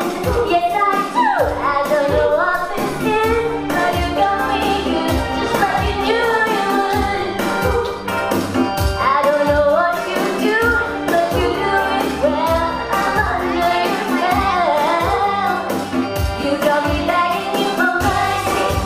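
A girl singing a pop song into a handheld microphone over backing music with a steady beat.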